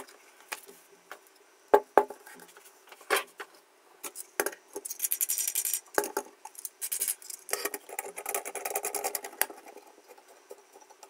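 A knife sharpening rig being put together on its stand by hand: parts knock and click into place, with two stretches of fast rattling clicks in between.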